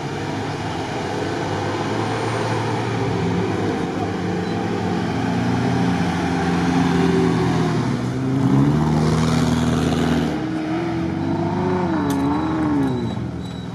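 Off-road 4x4 SUV engine running under load in sand, its revs changing several times. Near the end the pitch rises and falls repeatedly as the engine is revved up and down.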